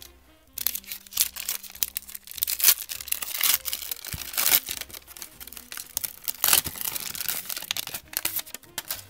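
Foil wrapper of a 1991 Upper Deck basketball card pack being torn open and crumpled by hand: dense crackling and crinkling of foil that starts about half a second in and comes in several loud spells.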